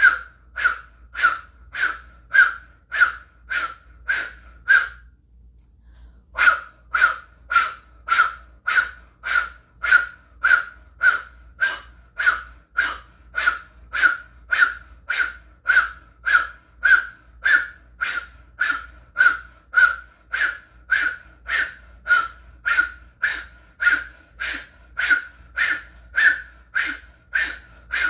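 O-mouthed breath of fire: forceful, rhythmic exhalations pumped through rounded lips, about two a second, each with a whistling tone. The strokes break off for about a second and a half some five seconds in, then carry on evenly.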